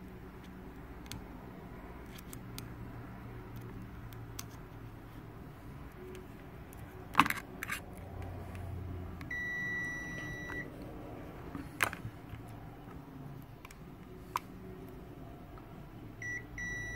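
Aneng Q1 digital multimeter's continuity beeper sounding a steady high beep for about a second and a half near the middle and again near the end, as the probes are tested for a short. A few sharp clicks and knocks of handling, the loudest just before the first beep.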